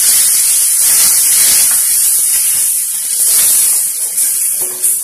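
Onion and spice-powder masala sizzling in hot oil in a metal pan while being stirred with a spatula: a steady frying hiss.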